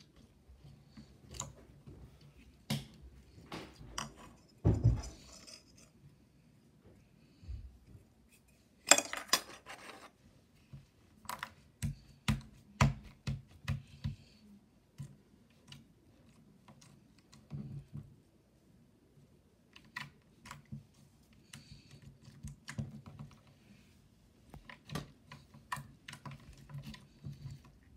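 Pink slime being poked, pressed flat and pulled up off a wooden surface by hand, making irregular small sticky clicks and pops, with a louder crackling stretch about nine seconds in.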